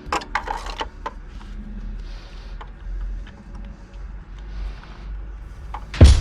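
Clicks and light knocks of hand tools and engine parts being handled, mostly in the first second, with a few short hissy scrapes after and a low hum underneath. Loud drum-and-bass music comes in near the end.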